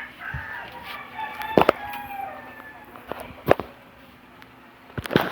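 A rooster crowing, one long call over the first couple of seconds, with a few sharp clicks, the loudest about one and a half and three and a half seconds in.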